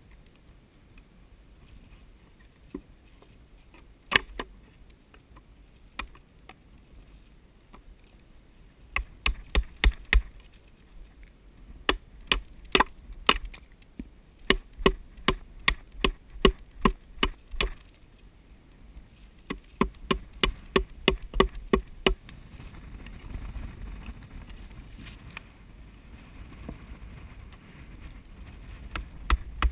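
Hammer blows on wood, a few single strikes and then runs of rapid knocks at about three a second: driving shims to wedge a wooden nest box tight into a slot cut in a dead tree.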